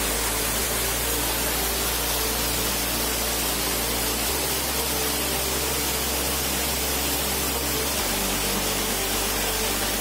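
Waterfall cascading over rock ledges into a pool: a steady, even rush of falling water.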